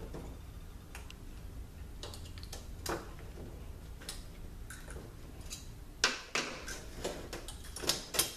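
Light metallic clicks and scrapes of steel picks working a snap ring out of an automatic transmission clutch drum, with a few sharper clicks about six and eight seconds in as the ring comes free.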